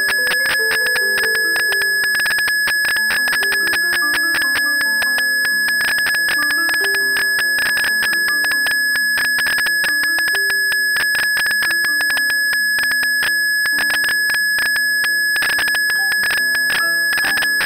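Blüthner grand piano playing a slow melody of single notes in the middle register. A steady high-pitched tone sounds over the music, along with frequent faint clicks.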